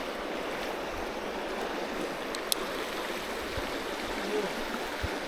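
Creek water rushing steadily, with a single short click about two and a half seconds in.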